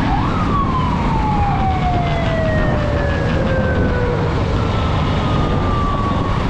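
Fake police siren: a quick rise in pitch, then one long, slow falling wail that keeps sliding down, over a steady low rumble.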